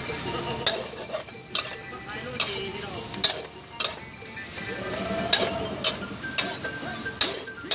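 Metal spatula striking and scraping against a steel wok about once a second, over the sizzle of vegetables stir-frying in the hot pan.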